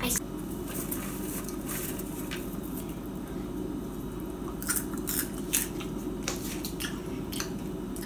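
A child crunching and chewing a mouthful of popcorn: a few short, crisp crunches and clicks, most of them in the second half, over a steady low hum.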